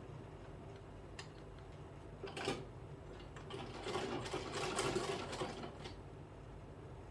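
Sewing machine stitching a zip onto fabric in two short runs: a brief one about two and a half seconds in, and a longer one from about four to six seconds in, over a steady low hum.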